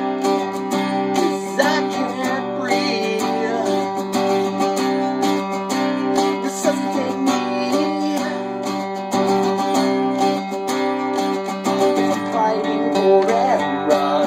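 Acoustic guitar strumming chords in an instrumental passage of a song.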